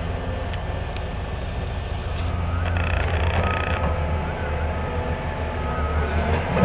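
Diesel engine of a Cat hydraulic excavator running with a steady deep rumble as it digs coal to load a dump truck.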